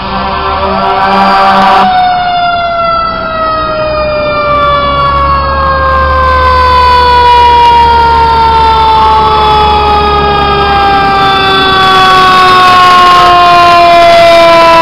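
Fire engine's siren winding down in one long, slowly falling tone, with the truck's engine running underneath. A second, fainter siren tone swells and fades in the middle.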